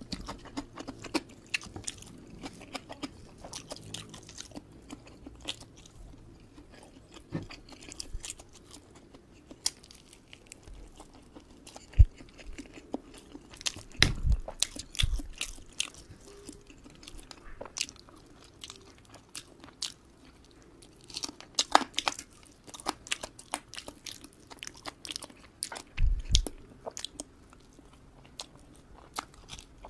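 Close-miked eating sounds: fingers working rice, closed-mouth chewing and crunchy bites of fried kampung chicken, heard as irregular small clicks and crunches with a few louder crunches scattered through.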